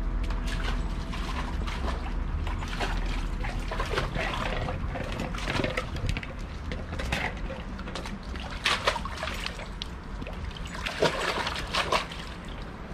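Water splashing and sloshing in a galvanized metal stock tank as a large dog plunges its head and a front paw in after a toy. The splashes come irregularly, with a few louder ones in the last few seconds.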